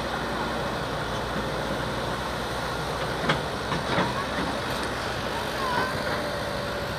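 Engine of heavy machinery running steadily, with a couple of sharp knocks about three and four seconds in and a few short chirps.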